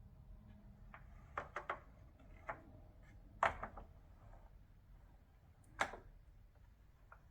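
A handful of irregular sharp clicks and knocks from a 1965 Hermes 3000 typewriter being handled, the loudest about three and a half seconds in.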